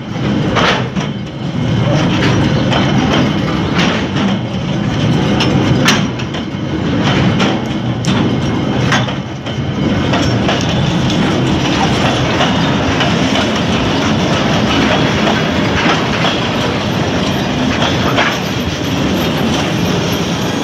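Freight train of loaded container flat wagons rolling past at close range, a steady rumble with the wheels clacking sharply and irregularly over rail joints.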